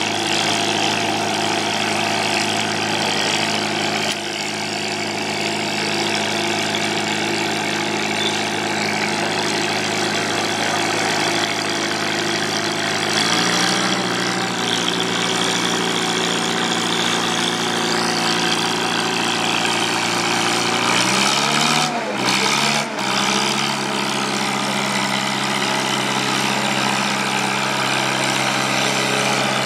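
Farmall H tractor's four-cylinder engine running steadily under load while pulling a weight-transfer sled. Its pitch steps up about halfway through and wavers briefly about two-thirds of the way in.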